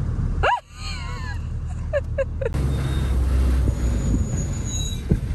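Vehicle engine and road rumble heard from inside a moving vehicle, after a few seconds of choppy edited snippets with sharp clicks about two seconds in.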